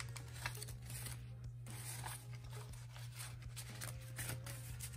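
Paper banknotes and a paper cash envelope being handled: bills pulled out and shuffled, with irregular rustling and crinkling.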